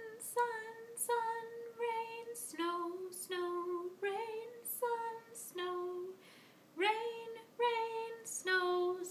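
A woman singing unaccompanied, a simple made-up tune of short one-word notes ("sun", "rain", "snow"), each held about half a second, stepping between a lower and a higher pitch, with a short pause a little past the middle.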